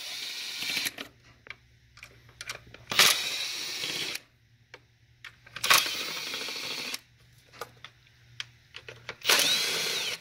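A cordless power driver spinning out the 8 mm intake manifold bolts in four short runs of about a second each, with quiet gaps between.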